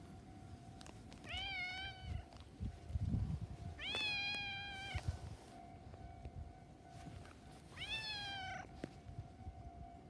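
A cat meowing three times, about a second in, about four seconds in and near the end; the middle meow is the longest and loudest, about a second long. A low rumble about three seconds in.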